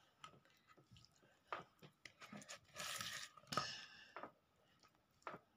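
Faint squishing and scattered light clicks as oily, spiced green chilli pickle is pressed down by hand into a glass jar, with a short louder squelch about three seconds in.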